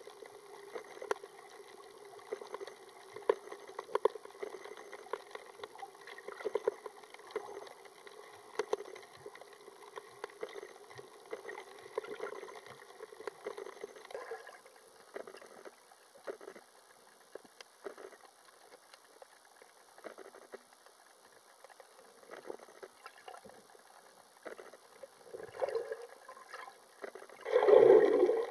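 Underwater ambience: a dense crackle of small clicks over a faint steady hum, thinning out about halfway, with a louder burst about a second long near the end.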